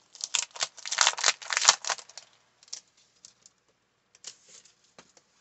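Clear plastic sleeve on a pad of scrapbook paper crinkling as it is handled: a dense crackle for about two seconds, then a few scattered ticks.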